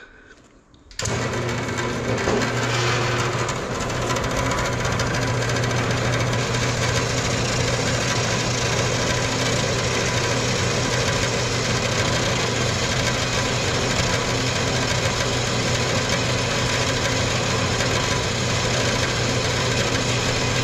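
Small horizontal metal-cutting bandsaw switched on about a second in and running steadily, a hum under the rasp of its blade cutting through a short piece of round metal stock held in the vise.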